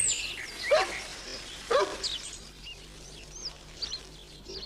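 Garden bird calls: two loud, sharp calls about a second apart in the first two seconds, then a few short, thin, high notes.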